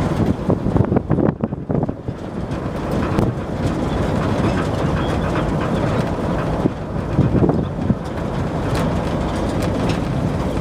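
Old 1970s Ford pickup truck driving, heard from inside the cab: the engine running with a steady road rumble and rattling from the cab, with louder clattering about a second in and again about seven seconds in.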